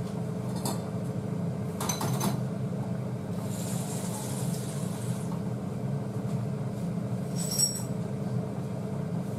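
Light metal clinks of a stainless-steel bowl and mesh strainer being handled at the sink, a few times, with a short run of tap water in the middle, over a steady hum from running kitchen appliances.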